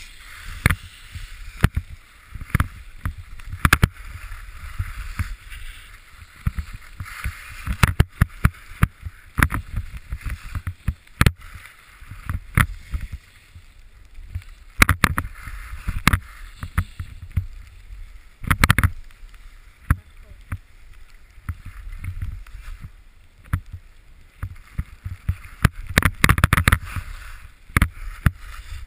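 Skis scraping and hissing over packed snow on a downhill run, with wind rumbling on a helmet-mounted camera. Frequent sharp knocks come through the helmet as the run goes over bumps, with the loudest clusters a little past halfway and near the end.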